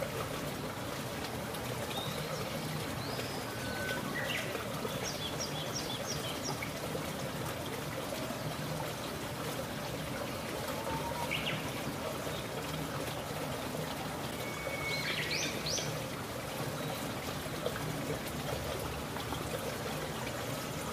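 Steady, even rushing noise with a few faint, short, high chirps, a cluster about four to seven seconds in and again near the middle and around fifteen seconds.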